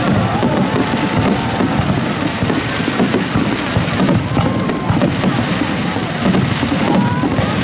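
Aerial fireworks shells bursting in quick succession: a continuous, loud din of booms and many sharp crackles, with no pause.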